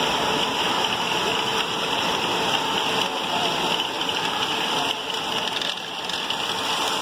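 LEGO Great Ball Contraption modules running: many small plastic balls clattering and rattling through motorized lifts and conveyors in a steady, dense rattle.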